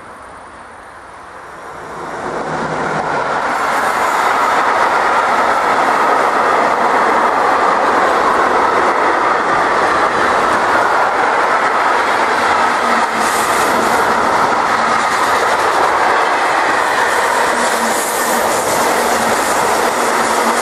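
Long freight train of hopper and goods wagons passing close by, its wheels rumbling on the rails. The noise swells over the first few seconds as the train arrives, then holds steady.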